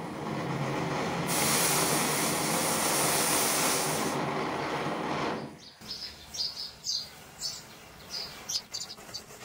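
Flower pot (anar) firework fountain hissing as it sprays sparks, a steady rushing hiss that cuts off sharply about six seconds in. After it, scattered crackles and short fizzes of burning matchsticks along the chain.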